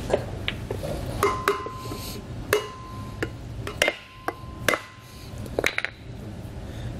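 Hammer taps driving a new inner grease seal into a trailer disc hub and rotor, about a dozen irregular strikes, several followed by a short metallic ring.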